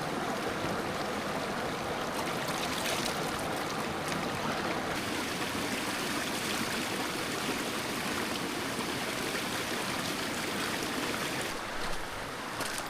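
Small mountain stream of icy snowmelt running over rocks, a steady rush of water.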